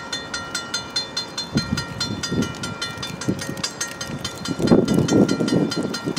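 Railroad crossing bell ringing in even strokes, about three a second, as the crossing signals are activated for an approaching train. A low rumble swells underneath from about a second and a half in and is loudest near the end.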